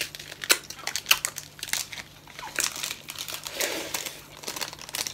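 Small plastic sauce sachet crinkling as it is opened and squeezed out over instant noodles, a run of sharp crackles.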